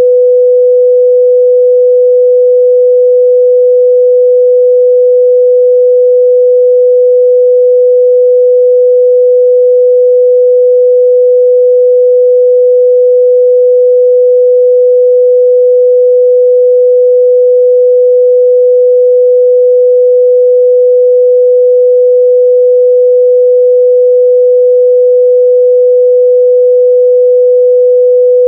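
A pure 497 Hz sine-wave test tone, held steady and loud without any change in pitch or level.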